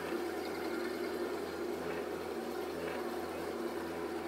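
1968 Chevrolet Camaro's engine running steadily at low speed as the car creeps along.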